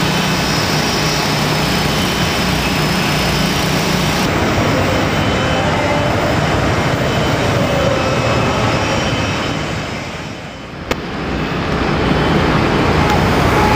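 A steady, loud roar with no clear pitch, like a distant jet engine. Near the end it dips briefly and is broken by a single sharp click, then comes back.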